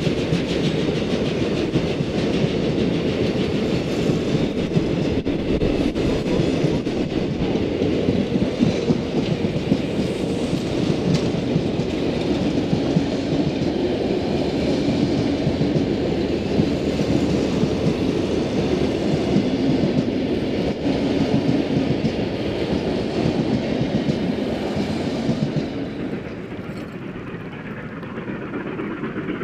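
Passenger carriages rolling past close by: a steady rumble of wheels on rail, with the clickety-clack of wheels over rail joints. About 26 s in, the rumble gives way to a quieter, duller background.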